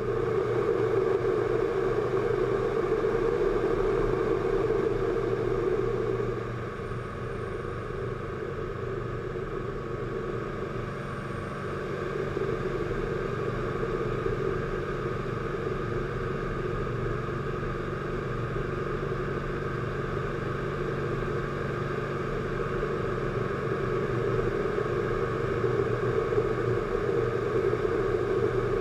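Piaggio P.149D's piston engine and propeller droning steadily in flight, heard from inside the cockpit. The engine note eases off about six seconds in and builds back up about twelve seconds in.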